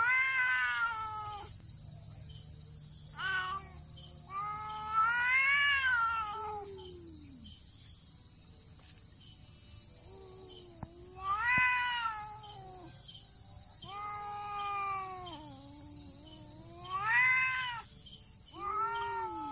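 Two cats in a standoff yowling at each other: about seven long, wavering caterwauls, each rising and falling in pitch. These are threat calls with no physical fighting.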